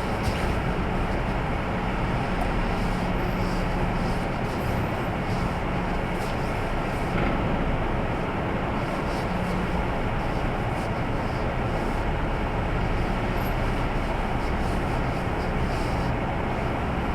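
Steady cabin noise inside a car with the engine running, an even hiss over a low hum.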